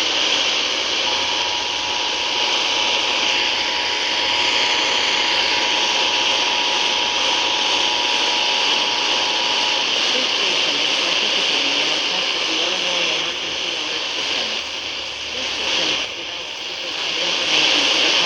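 Heavy radio static hiss from weak over-the-air reception. Beneath it, the Emergency Alert System's two-tone attention signal (853 and 960 Hz together) is faintly heard for about nine seconds, marking the start of a Required Monthly Test.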